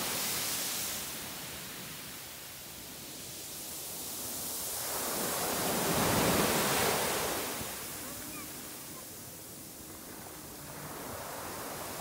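Small Pacific Ocean waves breaking and washing up a sandy beach: a rush of surf at the start, a louder one about six seconds in, and another building near the end, each fading between.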